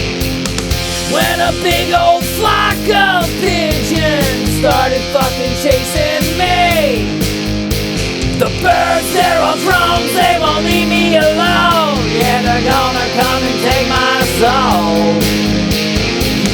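Rock band music: an instrumental break with a bending lead melody over a steady drum beat and bass.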